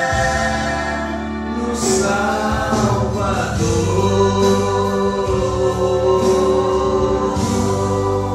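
Two men singing a gospel song in harmony through microphones, holding long notes over a steady instrumental backing.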